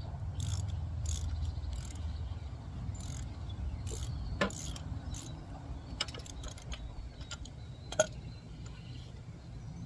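Hand tools at work on a motorcycle during an oil change: a socket ratchet clicking and metal tools clinking in irregular clicks, two sharper clinks about halfway through and near the end, over a steady low hum.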